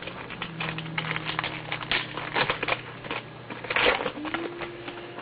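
Trading-card pack wrapper crinkling and cards being handled, a run of small crackles and clicks with a longer rustle about four seconds in.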